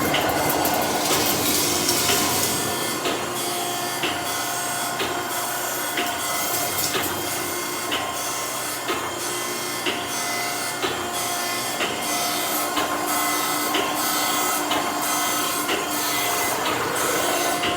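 Okamoto ACC-124N hydraulic surface grinder running, its 12-inch wheel grinding a workpiece on the magnetic chuck as the table travels back and forth. Grinding tones come and go, over regular sharp clicks.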